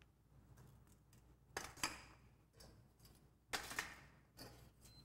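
Metal soil-test sieves clinking as they are set one onto another into a stack: a pair of sharp metal clanks about a second and a half in, another pair about three and a half seconds in, and a lighter knock near the end.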